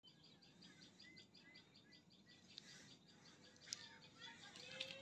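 Faint outdoor birdsong: a rapid run of short high chirps, about five a second, with scattered lower calls. Two faint sharp clicks come near the end.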